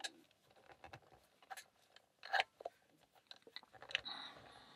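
Scattered small clicks and scrapes of a lock and metal lock picks being handled and positioned in a euro-cylinder keyway, the loudest click a little past halfway and a short rustle near the end.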